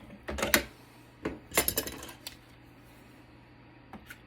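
Metal clinks and rattles from hand tools and parts while a network switch is being taken apart. There is a cluster of sharp clinks in the first half second and another about one and a half to two seconds in.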